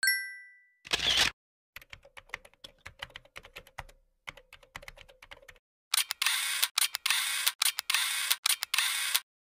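Animated end-screen sound effects: a ringing ding, a short whoosh about a second in, then rapid irregular clicking like typing for about three and a half seconds. It ends with about three seconds of loud hissing noise that stutters on and off.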